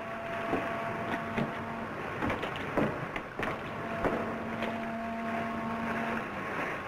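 Distant ship's horn across a harbor, sounding two long blasts of about two seconds each, with a higher steady whistle joining in the second half, over the hiss and crackle of an old film soundtrack.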